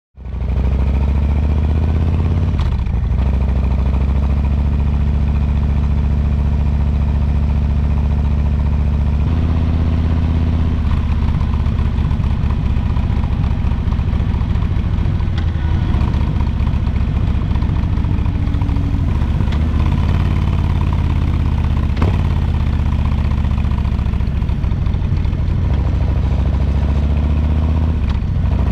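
Harley-Davidson Low Rider S's Milwaukee-Eight 117 V-twin running under way, heard from the rider's seat, fading in at the start. The engine note steps up and down several times as the bike shifts and changes speed.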